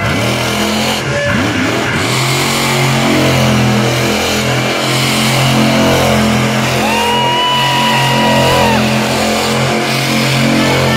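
Monster truck engine revving hard in quick rising sweeps, then held at high revs as the truck tears through the dirt. A brief steady higher tone sounds over it about seven seconds in.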